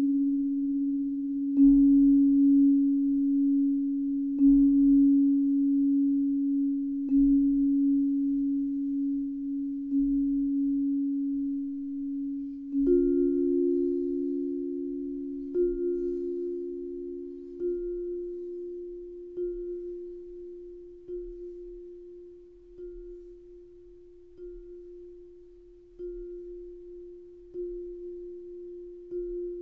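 Background music made of a low, ringing, bell-like tone, struck again every few seconds and left to ring. About halfway through the tone steps up in pitch, and the strikes come closer together.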